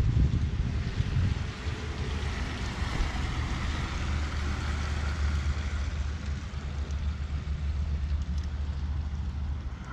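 Wind buffeting the microphone: a steady low rumble with a hiss that swells a little in the middle.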